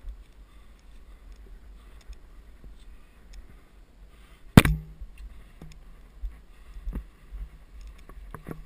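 Climbing gear (cams and carabiners on the rack) clinking as it is handled, with one sharp loud clack about four and a half seconds in, then scattered lighter clicks.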